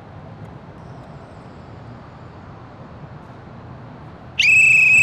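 A sports whistle, a pea whistle, blown once near the end: a single loud, shrill blast of about a second with a slight trill. Under it is a low, steady background rumble.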